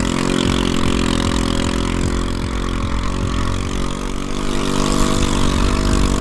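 A small engine running at a steady speed, driving the small vehicle the camera rides along the dirt track.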